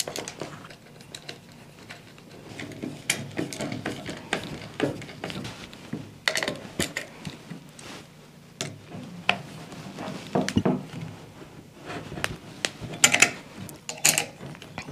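Small metal hardware clicking and clinking as a steel mounting plate is handled and #10 bolts with nylon nuts are fastened with a screwdriver and wrench, with scattered sharper knocks, the loudest near the end.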